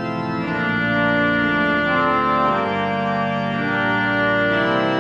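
Pipe organ built by Muller around the Aeolian-Skinner Opus 1188 core, playing slow sustained chords that change every second or so.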